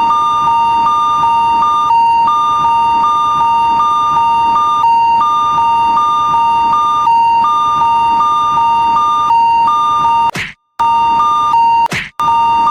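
Electronic Japanese railroad-crossing alarm: a steady tone with a slightly higher tone pulsing on and off about twice a second, repeating without change. Near the end it breaks off abruptly twice, each time with a short sweeping swoosh and a moment of silence, then carries on.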